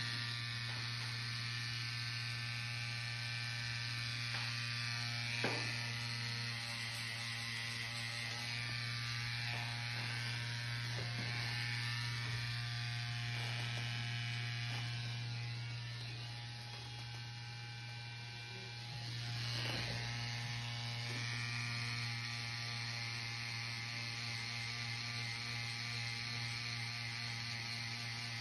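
Stigma Stylist rotary tattoo machine running with a steady hum as the needle works ink into skin, easing off briefly a little past the middle.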